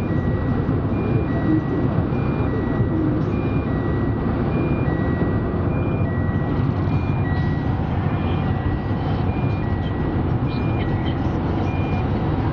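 Steady road and engine noise inside a moving vehicle. Over it, an electronic two-note chime repeats about once a second: a short higher beep, then a longer lower tone.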